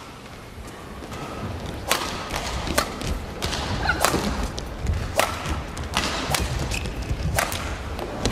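Badminton rally: a shuttlecock struck back and forth by rackets, about six sharp hits roughly one a second, over a steady low hum of the arena.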